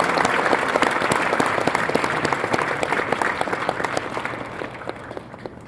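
Audience applauding, many hands clapping at once, dying away gradually toward the end.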